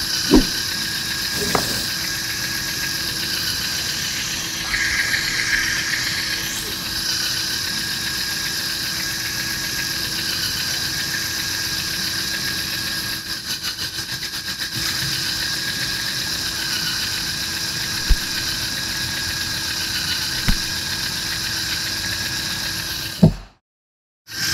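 LEGO Technic electric motors and gear trains whining steadily as a six-wheeled articulated LEGO car drives, with a few sharp plastic knocks. The sound cuts out briefly near the end.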